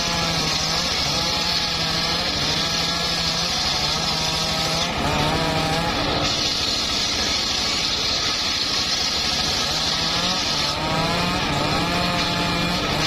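Engine-driven homemade circular sawmill running steadily while its blade rips through a hard old mahogany log, the whine of the cut wavering in pitch under load.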